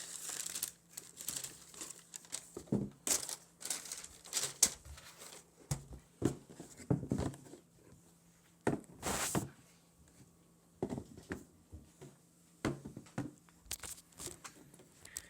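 Paper packaging crinkling and rustling in short, irregular bursts as sneakers are handled, with a few sharp knocks among them.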